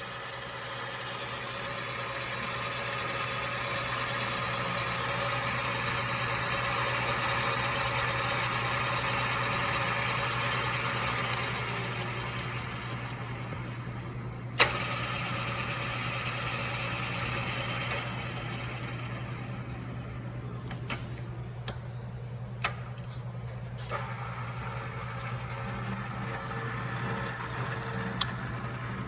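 Wilton drill press running with a steady motor hum, louder and noisier through the first ten seconds or so. Several sharp clicks come in the second half.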